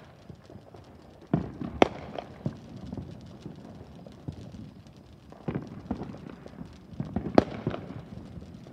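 Fireworks going off: irregular sharp bangs and crackling, with the loudest bangs about two seconds in and again near the end.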